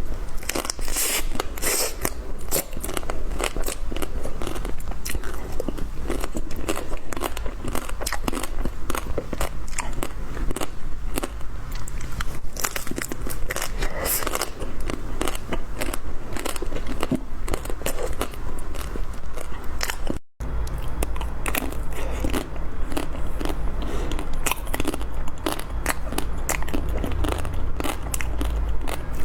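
Close-miked biting and chewing of a chocolate-coated Magnum ice cream bar, the chocolate shell cracking and crunching in rapid crisp clicks, with a brief break about two-thirds of the way through.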